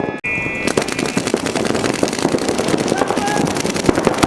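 Paintball markers firing in rapid strings, a dense run of sharp pops with no let-up, broken by a brief cut just after the start.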